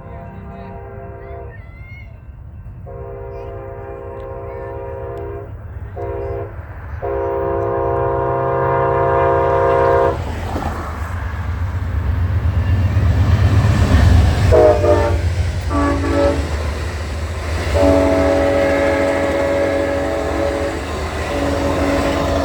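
Multi-chime train air horn blasting in a series, several long blasts with short gaps, as a fast Amtrak passenger train approaches and passes. The rumble of the train grows and is loudest a little past the middle. The last long blast sounds lower in pitch after the train goes by.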